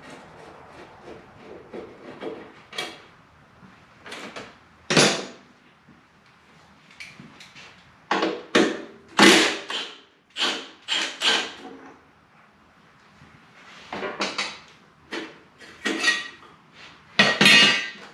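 Irregular clanks, rattles and scrapes of hand tools and metal parts being worked on a motorcycle's rear fender and covers, in short bursts with pauses between. A cluster of louder clanks comes about halfway through and another near the end.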